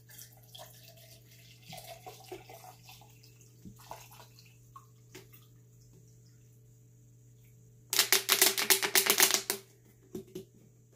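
Water poured from a plastic bottle into a plastic shaker cup, faint for several seconds. Then, about eight seconds in, the bottle gives a loud, rapid run of crackling clicks lasting about a second and a half.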